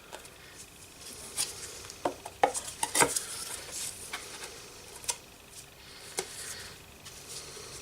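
Small metal parts of an airbrush compressor being handled during reassembly: scattered clinks and knocks, a cluster of louder ones a couple of seconds in and a few single ones later.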